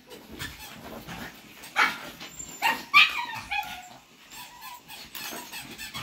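Small dogs barking and yipping in play, with two sharper barks about two and three seconds in.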